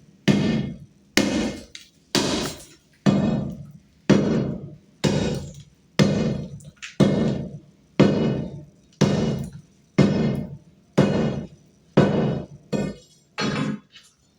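Hammer blows at a steady pace of about one a second, each strike sharp with a short ringing decay, breaking an opening to reach a hidden water leak.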